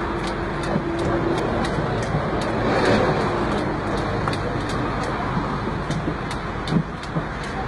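A knife chopping rapidly through oranges in a crate, about three sharp chops a second, over a loud, steady, machine-like noise.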